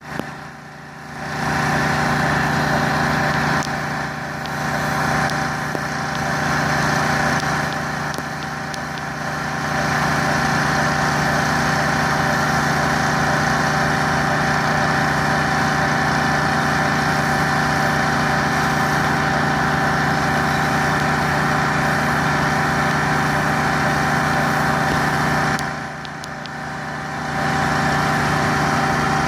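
Engine-driven pressure washer running steadily with the high-pressure jet hissing; the spray noise drops away briefly about a second in and again near the end while the engine keeps running.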